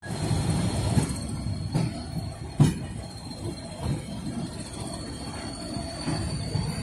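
Loose-coupled freight wagons of a slow works train rolling over jointed track, heard from aboard one of them: a steady low rumble with a few sharp clunks from wheels and couplings, the loudest about two and a half seconds in, over a thin steady high whine of wheel squeal.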